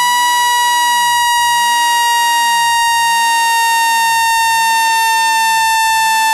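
Synthesized speaker-cleaning tone: a loud, steady buzzy tone just under 1 kHz with many overtones, sliding slowly down in pitch.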